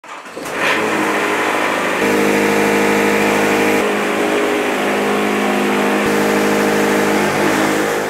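A bandsaw sawmill's engine running at steady speed, with a loud, even hum. The sound shifts abruptly about two seconds in and again about four seconds in.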